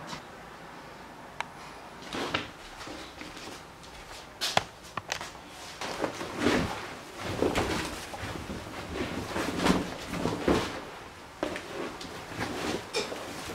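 A large fringed area rug being unrolled and shifted across a tiled floor: irregular rustling, scraping and soft knocks.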